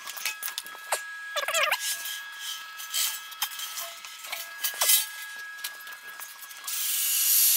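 Steel submarine hull section being turned by hand on a roller while hung in chain and strap slings: clinks of chain, metal rubbing on metal, and a brief wavering squeal about a second and a half in. Near the end a loud steady hiss takes over.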